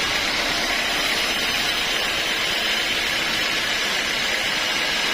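Sawmill machinery running steadily, a constant high hiss with faint steady tones and no breaks.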